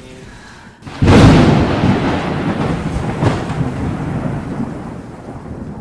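Thunderclap: a sudden crack about a second in, rolling on as a long rumble that slowly fades, with a second crack near the middle.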